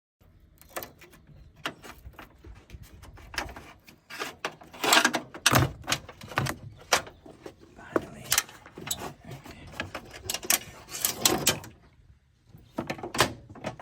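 Metal clicks, knocks and rattles of hand work on a truck's hood latch and release cable as the parts are worked loose, with denser bursts of clattering a few times.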